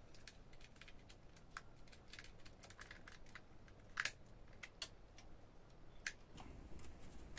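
Faint plastic clicks and light scrapes of a handheld drone remote controller being handled while its battery cover is opened, with a sharper click about four seconds in and another about six seconds in.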